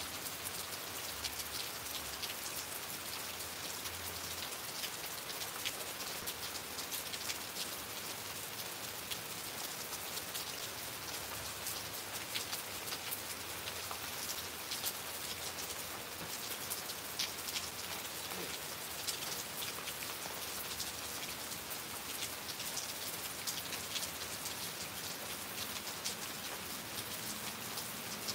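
Steady rain falling: a continuous even hiss with many individual drops ticking through it.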